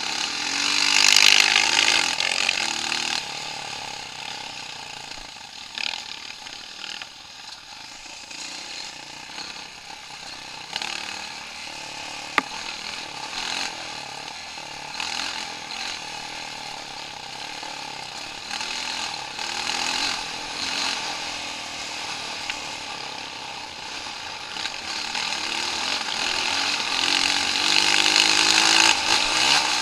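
Off-road vehicle engine running and revving, its pitch rising and falling, loudest about a second in and again near the end.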